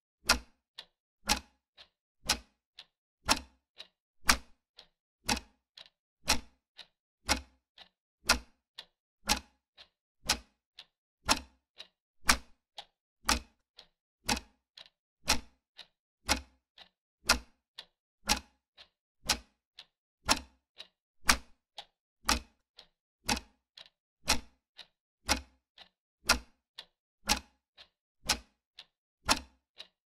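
Clock ticking sound effect: a steady tick-tock of about two sharp clicks a second, a louder tick on each second alternating with a softer one between.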